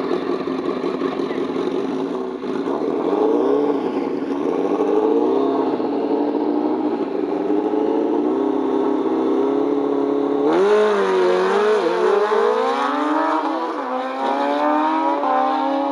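Drag-racing motorcycles, one of them a Suzuki Hayabusa's inline-four, revving at the start line with the pitch rising and falling. About ten seconds in they launch: the engine pitch climbs, drops at each gear change and climbs again as they accelerate away down the strip.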